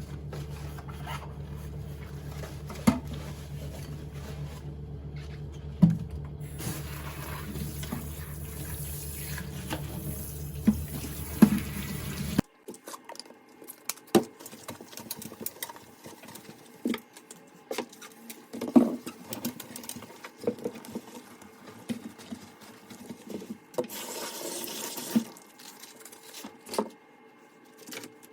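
Water running from a kitchen tap over a steady hum, with occasional knocks. Midway the hum stops abruptly. After that come light clinks and knocks of kitchenware and a short run of tap water near the end.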